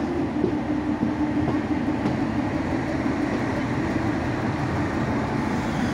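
Passenger train coach rolling slowly over station tracks, heard from the open doorway: a steady rumble of wheels on rails with a low steady hum, stronger in the first couple of seconds.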